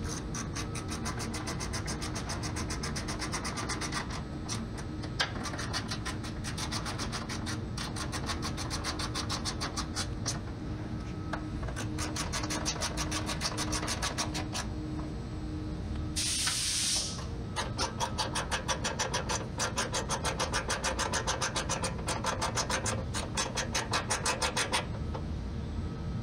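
10 mm socket ratchet wrench clicking rapidly and evenly as it tightens the fender's mounting bolts. About two-thirds through comes a short hiss, after which the clicking comes in strokes of about three a second.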